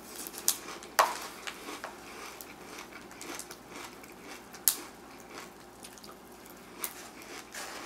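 Someone eating crispy rice cereal in milk from a plastic container with a spoon: wet chewing and crackling, broken by a few sharp clicks, the loudest about a second in.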